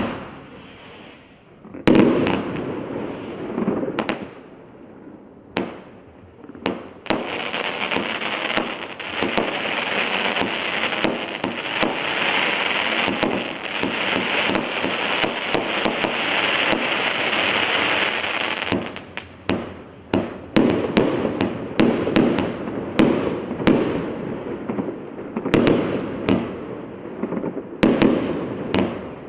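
Evolution Fireworks Prometheus 72-shot compound firework cake firing. A few single sharp shots come first, then about twelve seconds of dense, continuous noise, then rapid bangs again, several a second, to the end.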